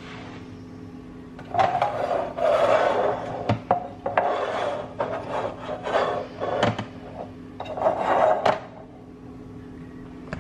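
Hands handling plastic juicer cups and cut produce on the counter: several rough rubbing and scraping bursts with a few sharp knocks, over a faint steady hum.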